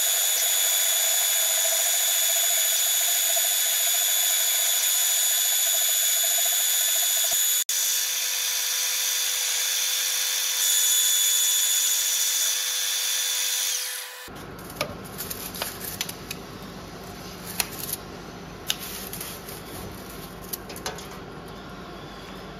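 Large twist drill in an Elliot Victoria V2 milling machine cutting through a steel plate: a loud, steady, high-pitched whine with hiss, a little louder about eleven seconds in. At about fourteen seconds the cutting stops and the sound drops to the quieter running machine with scattered clicks.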